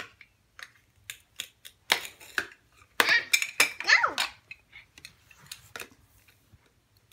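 Plastic toy knife and play food clicking and clacking against a plastic toy cutting board in a string of sharp taps, busiest around the middle.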